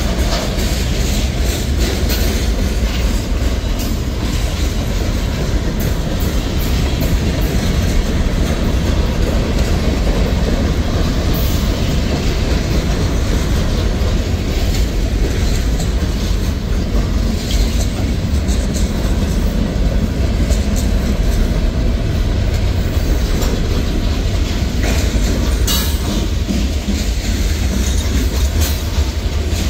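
Freight cars of a mixed freight train rolling past: the steady, loud low rumble of steel wheels on rail, with a few sharp clicks from the wheels and couplers.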